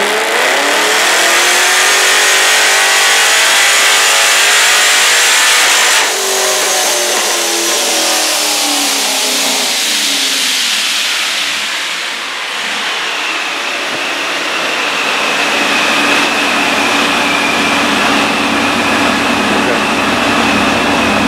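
Procharged LSX 376 V8 in a C6 Corvette making a full-throttle pull on a chassis dyno: the engine note climbs for about six seconds with a high supercharger whine rising alongside, then the throttle shuts and the revs fall away over the next several seconds. A steady hum with a high whine follows.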